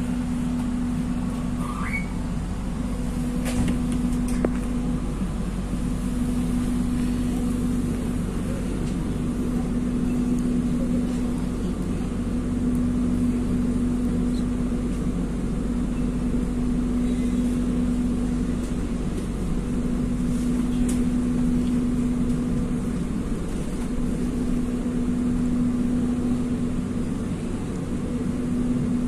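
Steady hum and low rumble of a train, with a constant droning tone that drops out briefly every few seconds.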